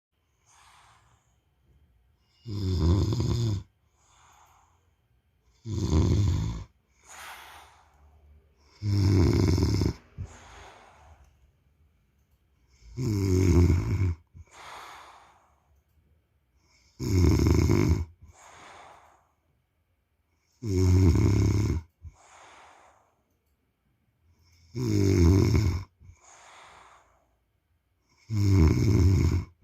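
A man snoring in a slow, regular rhythm: a loud snore about every four seconds, eight in all, each followed by a softer breath.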